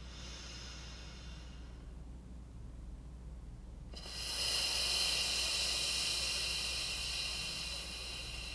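A person breathing in with a soft hiss, then after a pause of about two seconds a long exhale on an 'f' sound that hisses through the lips and slowly fades.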